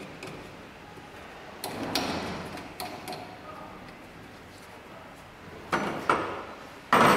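Clicks, scrapes and knocks of metal parts as a motorcycle wheel is fitted onto a wheel balancer's adapter shaft, with a scraping stretch about two seconds in, two sharp knocks near the end and then a loud thump.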